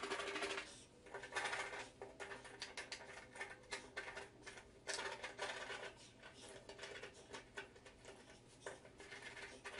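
Faint hand scraping: a scraper fitted with a utility-knife blade scraping leftover parquet glue off the subfloor in short, irregular strokes.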